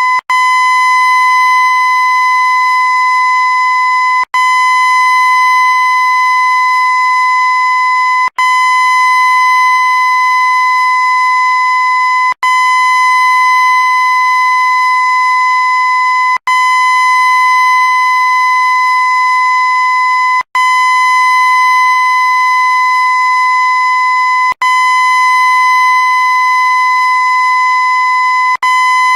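A loud, steady, horn-like tone held at one unchanging pitch, played as a loop with a very short break about every four seconds.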